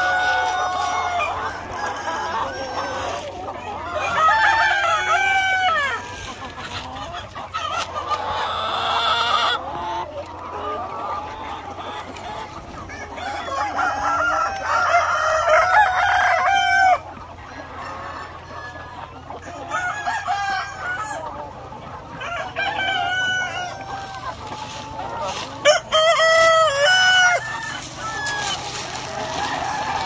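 A large flock of native chickens clucking and calling over one another, with roosters crowing several times.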